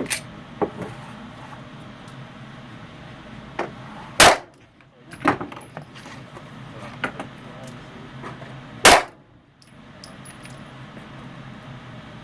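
Two pistol shots from a Beretta handgun, about four and a half seconds apart, with lighter clicks and clatter in between.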